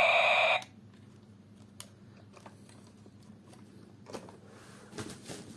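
Battery-operated light-and-music toy helicopter's electronic sound playing through its small speaker, cut off suddenly under a second in. Then faint clicks and handling rustles near the end.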